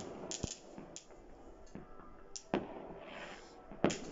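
Fireworks going off: four sharp bangs at uneven intervals, with crackling in between and a short hiss about three seconds in.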